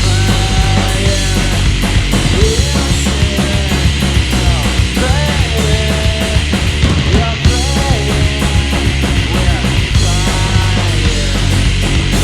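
Loud live punk rock from a three-piece band: electric guitar, bass guitar and drum kit playing together, with bending pitched guitar or vocal lines over a dense drum beat.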